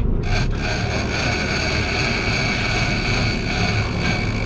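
Big-game fishing reel's drag whining steadily as a hooked bluefin tuna pulls line off, over a constant low rumble. The whine breaks off briefly near the start, then runs on unbroken.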